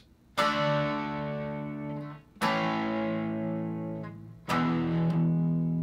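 Hollow-body electric guitar strumming three chords, D, then A, then E, each struck once about two seconds apart and left to ring out and fade.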